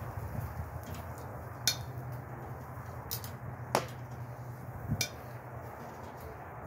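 Four sharp clicks or knocks at irregular intervals over a low, steady hum.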